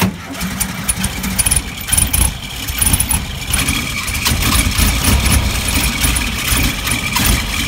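1968 VW Bay Window camper's air-cooled flat-four engine starting, then running unevenly close by.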